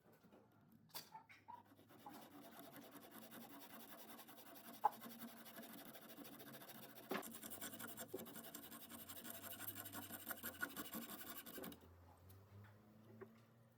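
Faint, continuous scratching with a few sharp clicks, which stops abruptly near the end.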